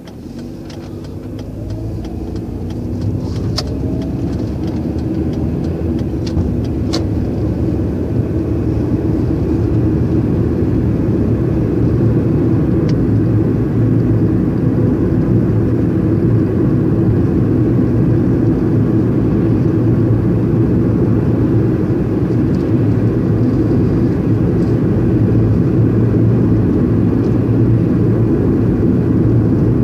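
Car engine and road noise heard from inside the cabin as the car pulls away and accelerates. The engine rises in pitch and grows louder over the first few seconds, then settles into a steady cruising drone with tyre rumble. A few light ticks sound near the start.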